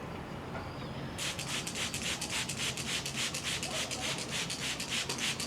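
A stiff brush scrubbing a hard surface in quick back-and-forth strokes, about four a second, starting about a second in.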